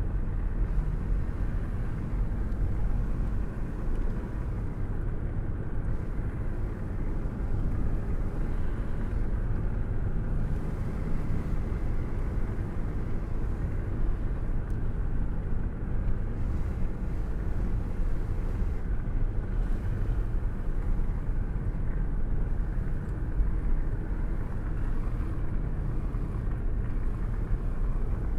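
Car cruising at steady speed with a window open and a hand held out in the airflow: a steady rush of wind over a low road and engine rumble, with small flutters in loudness.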